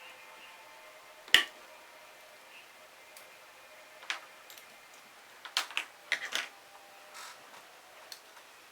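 Small metal tools and model engine parts clicking and tapping on a workbench as a four-stroke glow engine is taken apart. One sharp, loud click comes early, followed by a scattered run of lighter clicks and taps.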